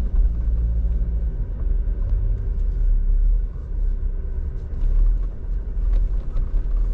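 A Jeep's engine running at low speed off-road, a steady low rumble heard from inside the cabin, with a few light knocks and rattles in the second half.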